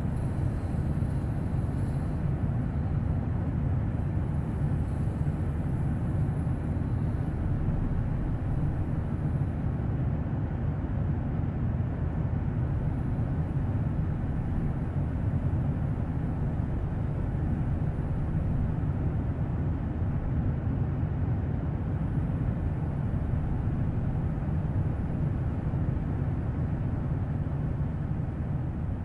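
A steady low rumbling drone with no clear rhythm or tune, fading out at the end.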